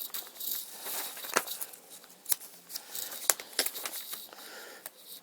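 Crinkling, rustling and light plastic clicks of a toy kit's packet and parts being handled, as powdered mix is measured out.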